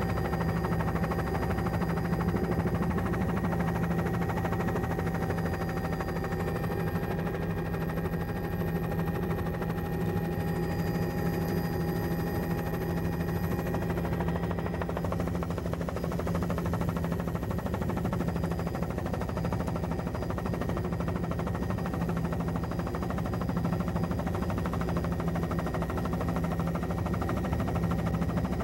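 Steady drone of a helicopter's engine and rotor heard from inside the cabin, with a strong low hum and a few faint high whines that drop away about halfway through.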